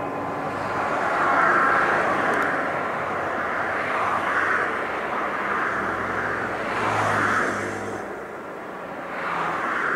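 Cessna 208B Grand Caravan's single turboprop engine running as the aircraft flies the circuit, a steady rushing noise that swells and eases several times, with a faint steady whine.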